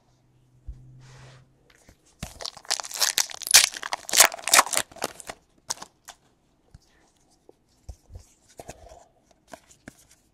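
A trading-card pack wrapper being torn open and crinkled, loudest for about three seconds starting two seconds in, then light rustling and small clicks as the cards are handled.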